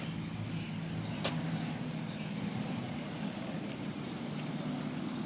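A steady low mechanical hum, like an engine running, with a faint click about a second in.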